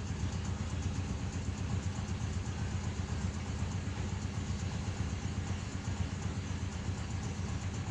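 A boat's engine running steadily at a low, even speed, with a deep, constant hum.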